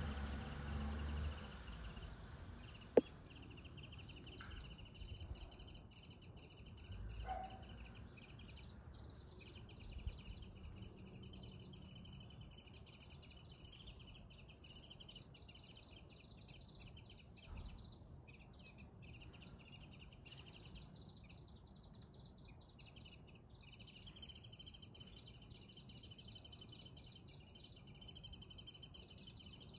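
Small birds chirping steadily and high, with brief dropouts. A low car rumble fades out at the start, and a single sharp click comes about three seconds in.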